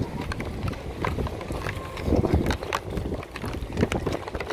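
Street ambience while walking: irregular clicks and knocks with footsteps, and people talking in the background.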